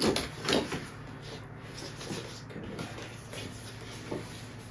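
Cardboard box and packaging being handled while being unpacked: a few sharp knocks in the first second, then quieter shuffling and rustling.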